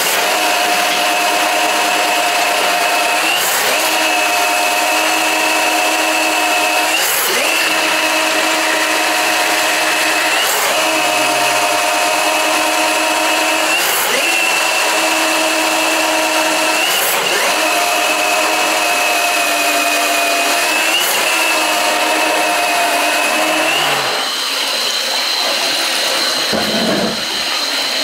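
Milwaukee M18 battery drain snake running, spinning its 7/8-inch cable down a clogged floor drain to clear a sewage blockage. It makes a steady motor whine with short dips about every three and a half seconds, and the note changes near the end.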